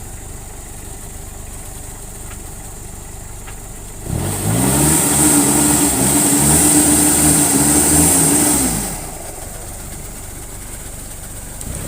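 Off-road 4x4's engine idling, then revved hard for about four and a half seconds, rising in pitch and then held, with a hiss along with it, before dropping back to idle: the vehicle is stuck and cannot drive forward.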